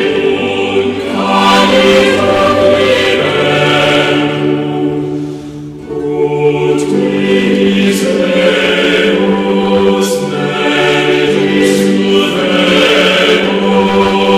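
A choir singing slow, held chords, with a short break between phrases about five or six seconds in.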